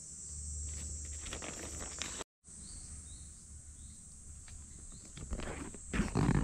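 Steady high-pitched drone of summer insects, with nylon tent fabric rustling as it is handled near the end.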